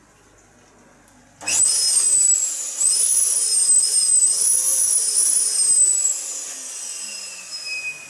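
Long latex modelling balloon being blown up by mouth: a loud rush of air through the balloon's neck with a high, wavering whistle, starting about a second and a half in and easing off over the last two seconds.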